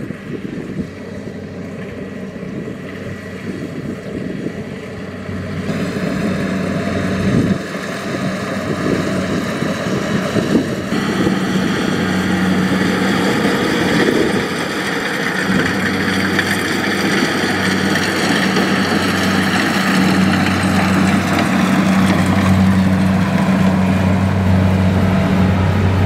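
Kubota DC-70 Plus rice combine harvester at work cutting and threshing rice: its diesel engine runs with a steady hum under the whirr of the harvesting mechanism. The sound gets louder through the first half, then holds steady.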